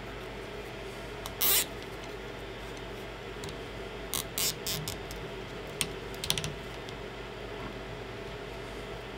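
Handling noise of hands working with wires and plastic printer parts: short scratching and rustling sounds, one about a second and a half in and a cluster of several more between about four and six and a half seconds, over a steady background hum.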